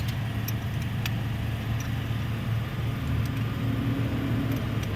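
An engine running steadily at idle with a low, even hum, with a few light clicks about a second in.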